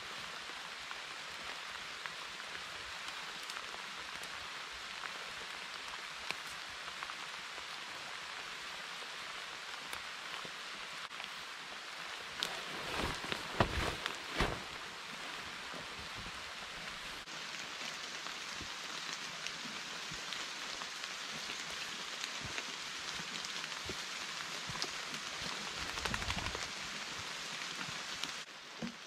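Steady rain falling on forest foliage, with a few louder thumps and rustles about halfway through and again near the end.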